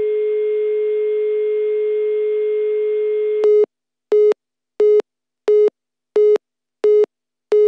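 Telephone line tones heard through a handset. A steady single-pitch dial tone with faint line hiss runs for about three and a half seconds. It then switches to the short repeating beeps of a busy signal, seven of them at about one and a half a second.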